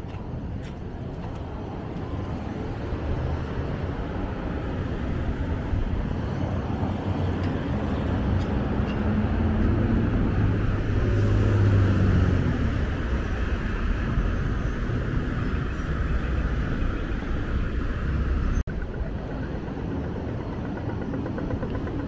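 Road traffic at a street intersection: cars driving past, with one vehicle's engine rumble growing louder to a peak about halfway through as it passes close, then easing off. The sound drops out for an instant near the end.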